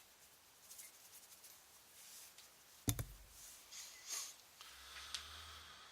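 Small clicks and rustles of wires and tools being handled on a workbench, with one sharp knock about three seconds in.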